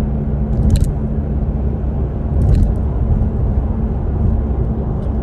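Low, steady rumble of a Mazda CX-3 on the move, with a steady hum underneath; this is the car's droning noise, checked after a repair. Two brief clicks come about a second in and about halfway through.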